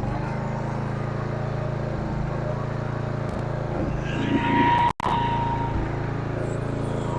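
Small engine of a Simplicity rear-engine riding mower running steadily, a little louder for a moment about four seconds in, with a brief cut-out about five seconds in.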